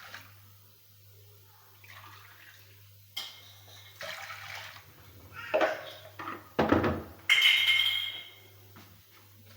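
Water running and splashing in several short bursts, loudest about two thirds of the way through.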